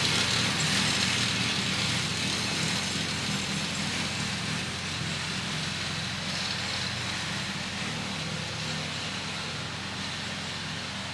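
Massey Ferguson 35 tractor engine running steadily, gradually growing fainter.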